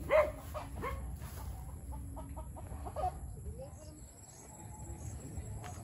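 Chicken clucking: a loud call just after the start, then a string of fainter short clucks.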